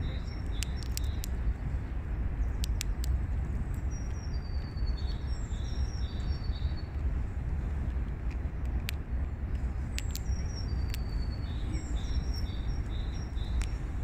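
A songbird singing a phrase of high notes that step downward and end in a few repeated lower notes, each phrase about three seconds long, twice with several seconds between, over a steady low rumble. Short sharp ticks are scattered through it.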